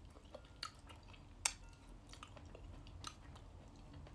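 Quiet chewing of a mouthful of stir-fried vermicelli noodles, with a few sharp clicks, the loudest about a second and a half in.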